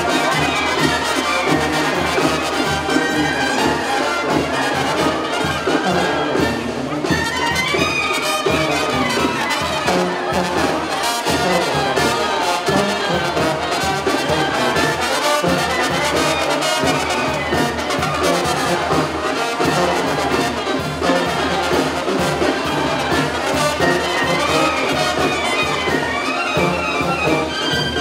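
A brass band playing, loud and without a break.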